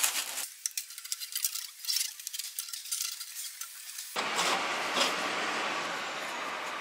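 Light clinks and plastic rustling as parts are handled. About four seconds in the sound cuts to a steady workshop noise, with a single tool click soon after.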